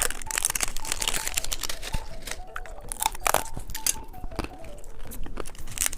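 Plastic candy wrapper being torn open and crinkled by hand, a run of irregular crackles.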